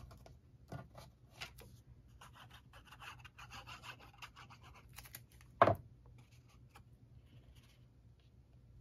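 Quiet scratching and rubbing as a liquid glue bottle's tip is drawn across cardstock, with light paper clicks. About two thirds of the way in, one sharp knock as the plastic glue bottle is set down on the wooden table.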